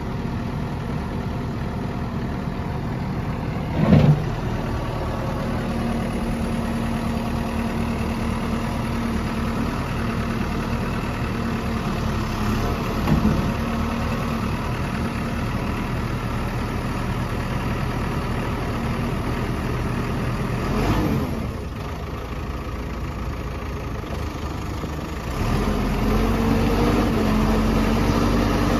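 A backhoe loader's 91 HP Perkins diesel idling steadily, with short louder surges about 4, 13 and 21 seconds in. Near the end the engine runs louder.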